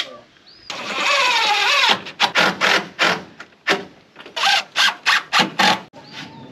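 Power drill running while driving roofing screws: one continuous run of about a second with the motor's pitch wavering, then a quick string of short bursts.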